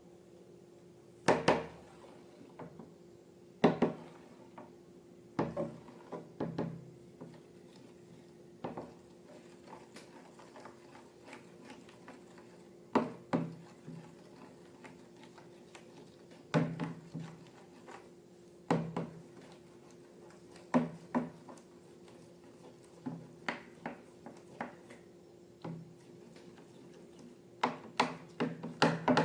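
Irregular light knocks and clinks, like a utensil or container being handled and set down, one every second or few and sometimes two or three in quick succession, over a faint steady hum.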